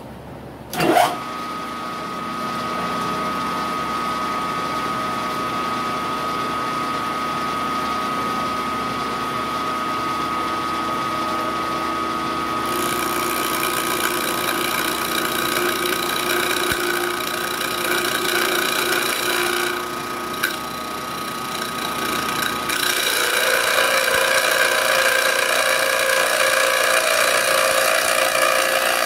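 Vertical milling machine cutting a thin plastic block: a sharp clack about a second in, then the machine runs with a steady whine while the cutter chews the plastic, the cutting noise growing louder about halfway through and again near the end. The thin top of the block is snapping as it is cut, which the machinist puts down to conventional cutting rather than climb cutting.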